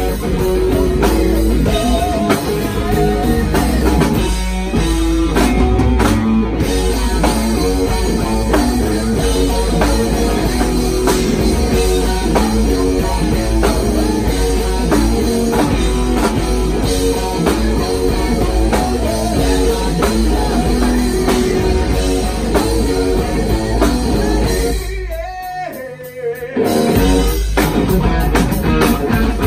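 Live rock band playing loud through a PA: electric guitars, bass guitar and drum kit. Near the end the band drops out briefly, then comes back in at full volume.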